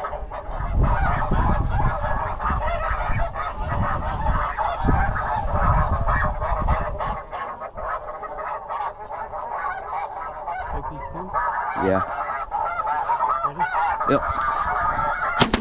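Snow geese calling: many overlapping high honking calls from a flock, with wind rumbling on the microphone through the first half. A sharp crack comes right at the end.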